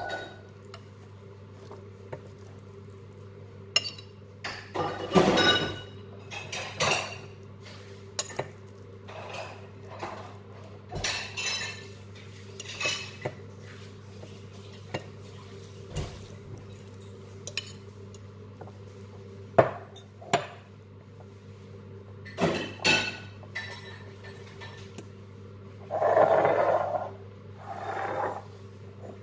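Metal spoon scraping and clinking against a glass mixing bowl and a ceramic serving bowl as tuna salad is scooped out, in irregular clinks and scrapes. There are two longer, louder scrapes, about five seconds in and near the end.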